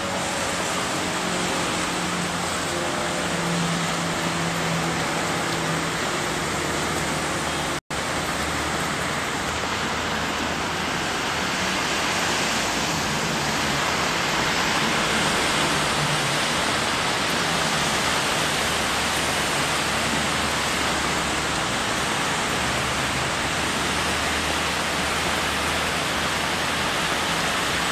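Heavy rain pouring steadily, a dense even hiss, with a momentary cut-out about eight seconds in.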